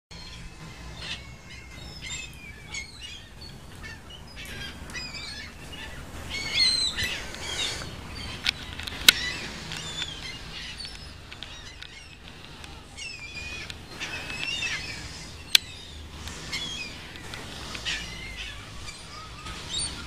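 A large flock of gulls calling overhead, many overlapping cries at once, busiest about a third of the way in and again past the middle. Two sharp clicks stand out, one near the middle and one a few seconds later.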